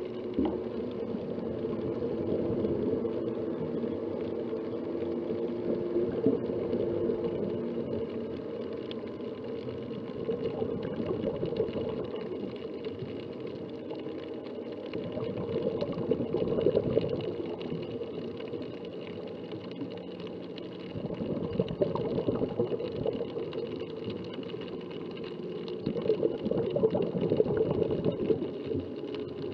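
Underwater sound of a scuba diver's exhaled bubbles burbling, swelling in bursts about every five seconds with the breathing cycle, over a faint steady hum.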